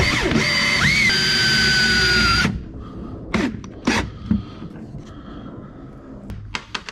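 Power drill driving a self-tapping screw into the rear oil seal of a Getrag 420G transmission, its motor whining, rising briefly in pitch about a second in, then stopping suddenly about two and a half seconds in. A few short clicks and knocks follow.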